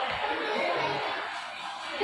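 Background music playing over a PA, with faint voices of people talking.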